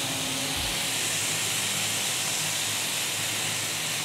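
Skewered chicken kebabs sizzling steadily on a hot ridged grill pan over a high gas flame, just after being turned over.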